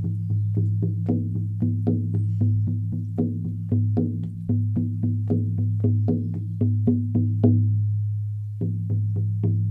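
18-inch hair-on horse skin frame drum on an ash frame, beaten with a firm beater in a steady pulse of about three strikes a second over a deep, sustained boom. About eight seconds in the strokes stop and the boom rings on, then a few more strikes come near the end.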